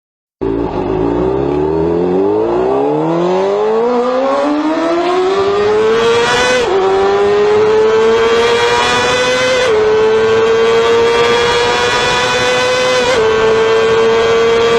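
Motorcycle engine accelerating hard through the gears. The revs climb steeply for about six seconds, then dip at each upshift, about six and a half, nine and a half and thirteen seconds in, before climbing again more slowly.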